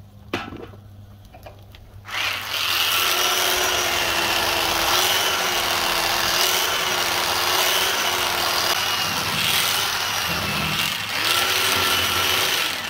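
Electric knife slicing chicken off a rotisserie spit. Its motor starts about two seconds in and runs as a steady buzzing whine that wavers slightly as the blade cuts, dips briefly near the end, then starts again and stops just before the end.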